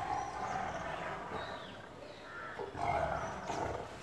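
Tiger growling low in warning at a hand near its cage bars, swelling again about three seconds in.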